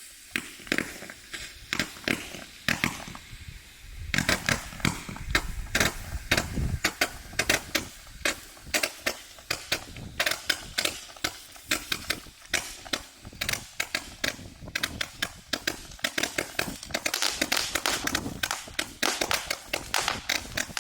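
168-shot 'mini gatling gun' firework cake firing a rapid stream of sharp pops, a few a second, with a low rumble for a few seconds about a quarter of the way in.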